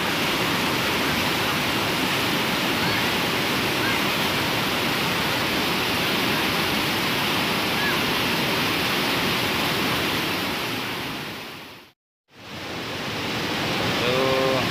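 Fast, muddy floodwater rushing and churning in a steady, loud wash. The sound fades out briefly about twelve seconds in and comes back as the rushing of a flooded river.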